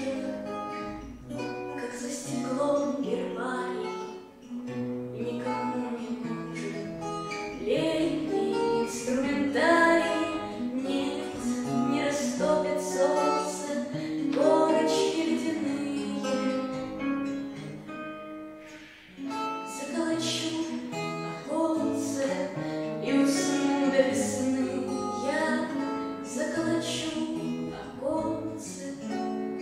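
A bard song sung by a young female voice to her own strummed acoustic guitar, with a short break in the playing about two-thirds of the way through.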